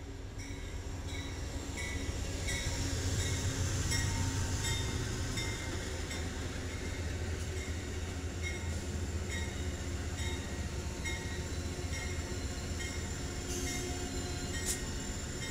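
Amtrak GE Genesis P42DC diesel locomotive No. 184 and its passenger cars passing close by: a steady low diesel rumble that builds over the first few seconds and then holds as the cars roll past. Throughout, a high ding repeats about twice a second.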